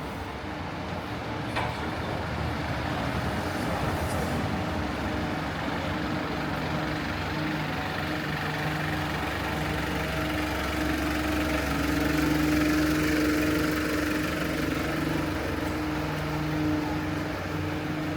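A large motor vehicle's engine idling close by: a steady low hum that swells a little about two-thirds of the way through, over street noise.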